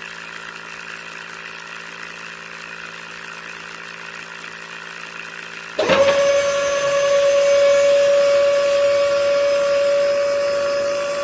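Small DC motors of a homemade toy drilling rig running. A low steady hum is heard first, then about six seconds in a louder motor starts with a quick rising whine and runs on at a steady high pitch.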